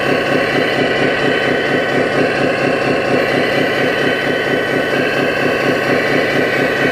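Simulated diesel engine sound from a 1/14-scale RC construction model's onboard sound module, running steadily with an even fast pulse, together with a steady high whine.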